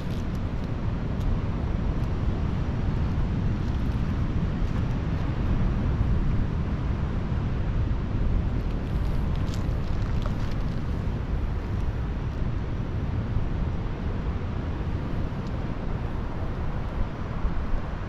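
Wind buffeting the microphone outdoors: a steady low rumble with no rise and fall.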